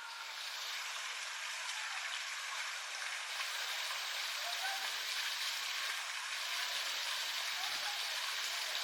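Steady rushing of water, even and unbroken, swelling slightly at the start, with a couple of faint short chirps in the middle.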